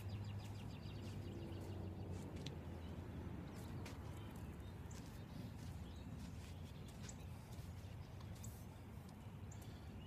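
Faint outdoor background noise with a low steady hum and a few soft scattered clicks; no bat strike.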